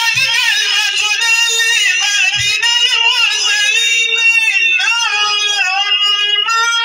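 A single high voice sings a long wavering melody without a break, amplified over a sound system.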